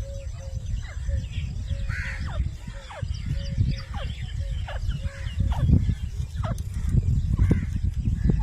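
Grey francolin calling: a long run of repeated short calls, each one falling steeply in pitch, over a steady low rumble.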